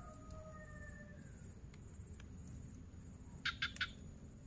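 Distant rooster crowing, its drawn-out call falling slightly and fading out about a second and a half in. A little after three seconds come three quick, short high chirps, over faint outdoor background.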